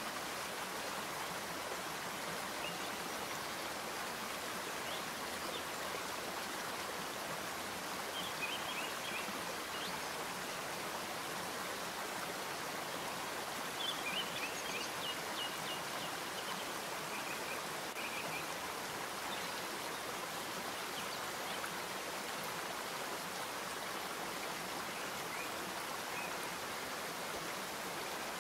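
Steady hiss, with faint light ticking now and then from spice seeds being stirred as they dry-roast in a nonstick pan.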